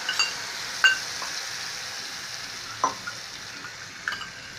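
Mustard oil with ajwain seeds sizzling in a hot kadhai, fading slightly over the few seconds, with four sharp metal clinks.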